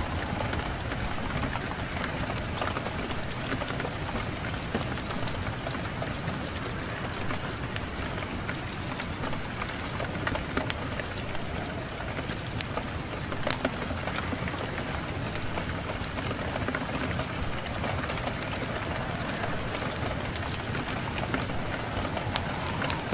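Fireplace fire crackling, with scattered sharp pops over a steady rushing of wind.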